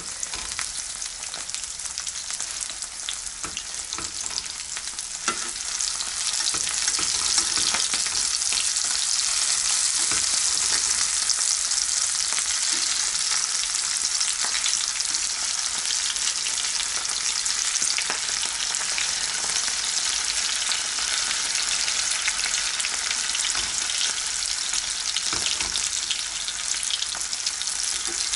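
Halloumi cheese slices frying in butter in a frying pan: a steady sizzle that grows louder about six seconds in, with a few light clicks and scrapes of a fork as the slices are turned.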